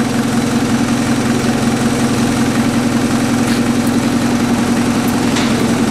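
Mitsubishi pickup truck's engine idling steadily with its engine oil drained, kept running by a surface-active lubricant treatment.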